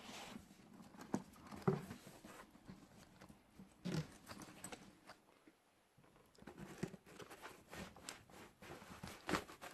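Faint, scattered clicks and knocks of packaging and accessories being handled and lifted out of a box, with a few sharper taps.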